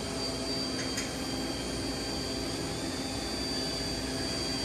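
Steady whirring hum of a running machine, with a constant high-pitched whine over it and a faint click about a second in.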